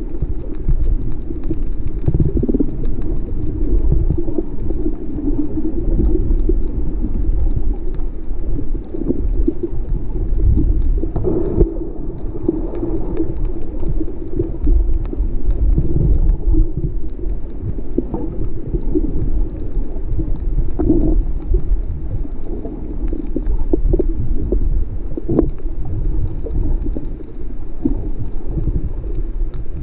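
Underwater reef ambience heard through a submerged camera: a steady low rumbling wash of water with a fine, continuous crackle of clicks above it.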